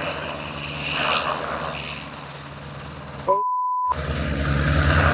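Helicopter's engine and rotor running steadily, with an even blade chop, as it flies low. About three seconds in, the sound cuts out for half a second under a short steady beep. It then comes back louder.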